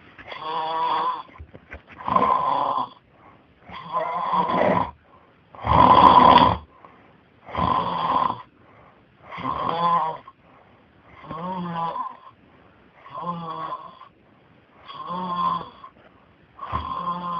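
A person snoring loudly and regularly, one rasping snore roughly every two seconds, about ten in all, the loudest about six seconds in.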